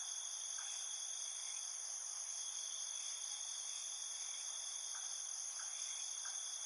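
Steady chorus of insects such as crickets, several high shrill tones held without a break, with a few faint short chirps mixed in.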